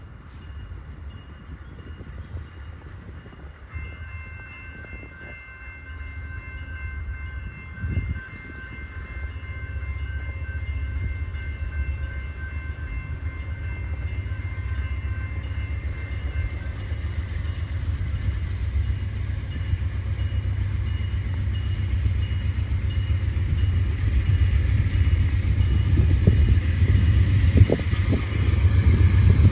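Freight train approaching, its low rumble growing steadily louder, with a steady high chord held for about twelve seconds early on and sharp wheel knocks near the end as it comes close.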